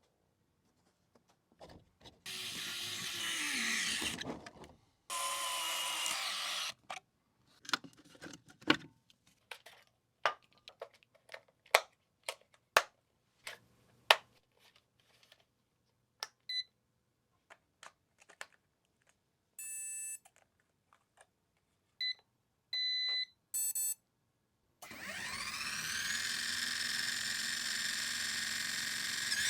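Handling noises: two brief bursts of rustling noise, then a run of sharp clicks, followed by several short electronic beeps as the mini RC Huey helicopter and its transmitter are powered up. Near the end, the helicopter's small electric motor starts with a whine that rises in pitch as the rotor spins up.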